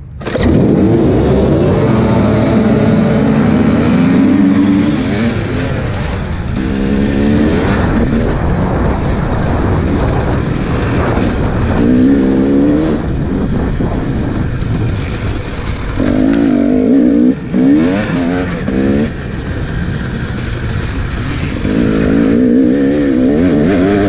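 Dirt bike engines start up suddenly and together as a race begins. Then the rider's own dirt bike engine revs hard, climbing in pitch and dropping back again and again as it shifts through the gears across rough grass.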